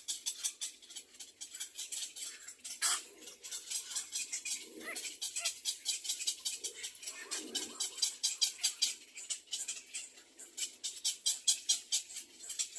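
Nestling bird chirping rapidly and continuously, a fast run of short high-pitched chirps, several a second.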